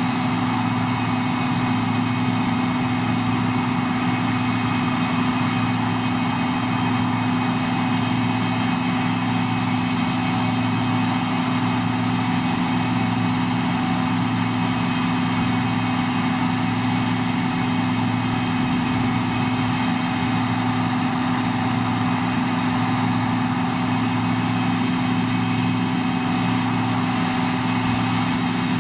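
John Deere 2258 combine harvester running steadily, a constant engine drone with a steady hum from the machine.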